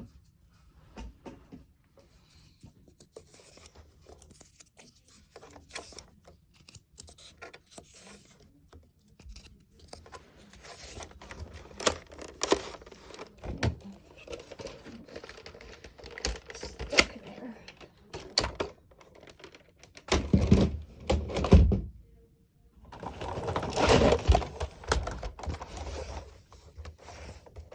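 Handling of plastic Nerf blasters and foam darts during reloading: many small plastic clicks, knocks and rattles, with louder clusters of knocking and rattling about two-thirds of the way through.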